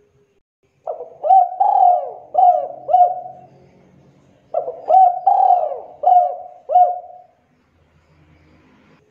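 Spotted dove cooing: two phrases of about five coos each, the first starting about a second in and the second about four and a half seconds in.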